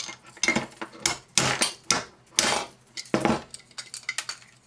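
Metal parts of a hot air popcorn popper clinking and scraping as it is pried apart by hand to get at its small motor: a run of short, irregular clanks and scrapes.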